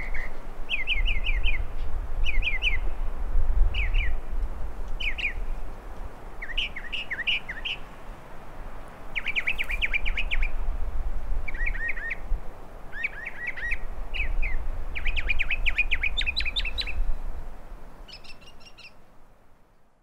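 Northern mockingbird singing: a run of varied phrases, each a short note repeated several times in quick succession, with brief pauses between phrases, over a low rumble. The song fades out near the end.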